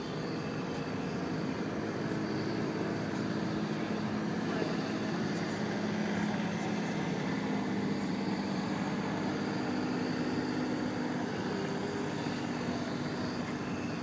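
Steady rush of a large propane flame burning under a metal dish, with a murmur of crowd voices behind it.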